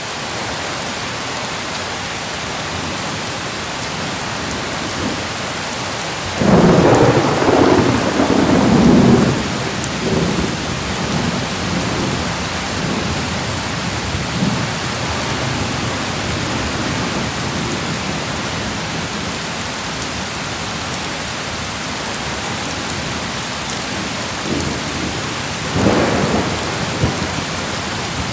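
Thunderstorm: steady rain hissing throughout, with a roll of thunder lasting about three seconds about a quarter of the way in and a shorter roll near the end.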